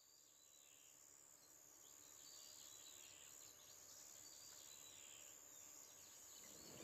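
Near silence: faint outdoor ambience fading in, with a few faint bird chirps and a steady high-pitched whine.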